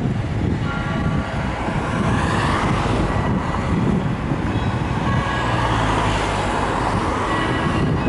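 Orthodox church bells ringing, several bells at different pitches sounding together so that their tones overlap and hang on, over a low, uneven rumble.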